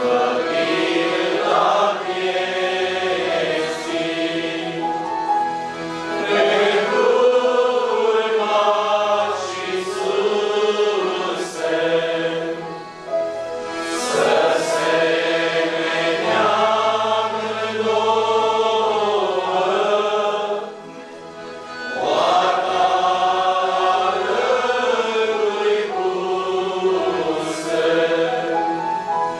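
Mixed choir singing a Romanian hymn in slow phrases, accompanied by accordions and keyboard with held bass notes underneath. The singing pauses briefly about two-thirds of the way through, then goes on.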